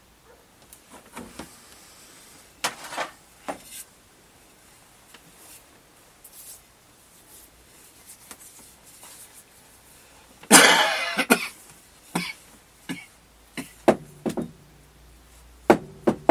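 A man coughs loudly once, about ten and a half seconds in, among scattered light knocks and taps of a hand tool working a small piece in his hands.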